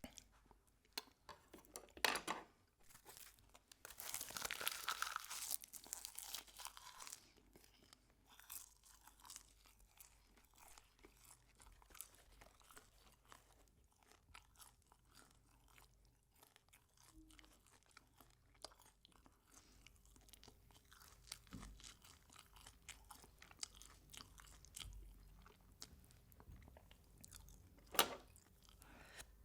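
Close-miked eating sounds: food being crunched and chewed. A sharp crunch about two seconds in, a louder stretch of crunching soon after, then faint chewing with small clicks, and another sharp crunch near the end.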